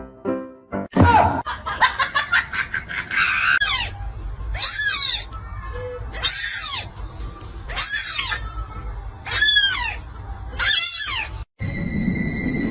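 Kitten mewing over and over: six high-pitched cries, each rising and then falling, about a second and a half apart.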